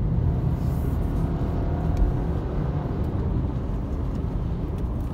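Steady low rumble of a car driving on a wet road, heard from inside the cabin.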